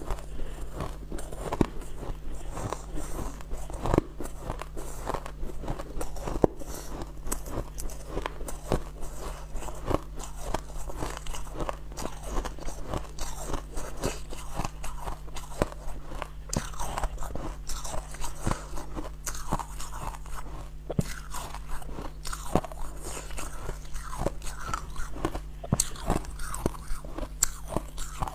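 Close-up crunching of packed, snow-like ice being bitten and chewed, a continuous run of small irregular crackles. A steady low hum sits underneath.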